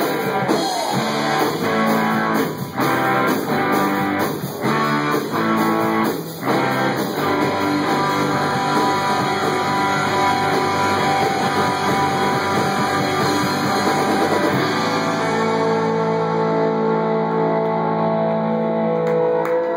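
A live band playing a guitar-led rock number. Short, punchy hits with brief gaps come first, then steady chords, and about three-quarters of the way through the band settles into one long held chord.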